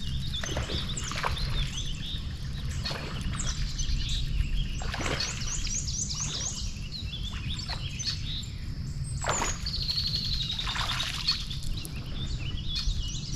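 Several birds singing and calling at once, with quick trills of repeated high notes, chirps and short sweeping calls, over a steady low rumble.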